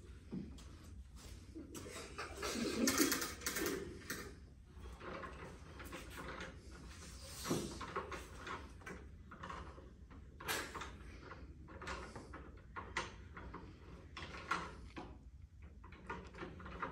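Scattered wooden clacks and scrapes of pieces being slid and knocked on a children's wooden activity table, irregular and light, with a louder stretch about two to four seconds in.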